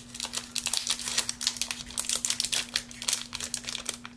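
Plastic trading-card booster pack wrapper crinkling and rustling as gloved hands open it, a dense run of irregular crackles.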